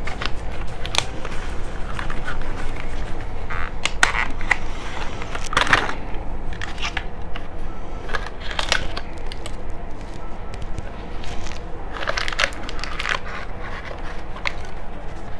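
Plastic toy packaging being crinkled, crunched and pulled open by hand, with irregular crackles and snaps.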